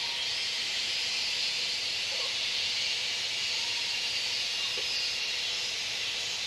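Steady high-pitched hiss of a forest insect chorus, unbroken and even in level.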